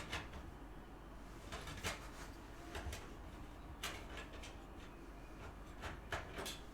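A few light, scattered clicks and knocks of computer case parts and cables being handled during a PC build.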